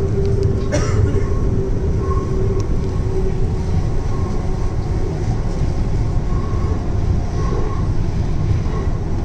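Hyderabad Metro train running on the elevated track, heard inside the passenger car: a steady rumble with a steady hum that fades out over the first few seconds, and a short click under a second in.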